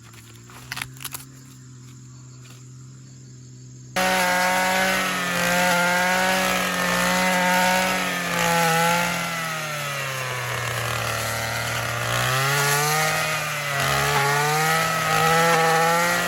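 Small engine running hard, its pitch sagging and picking up again as if under load. It starts suddenly about four seconds in, after a faint steady hum with a few light clicks.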